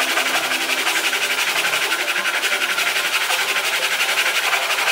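Hand saw cutting a slot into a wooden block, its teeth rasping through the wood in steady, rapid back-and-forth strokes, over background music.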